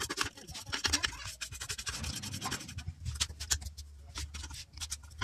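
Quick scratching and clicking as a computer power supply's circuit board is handled and lifted out of its metal case.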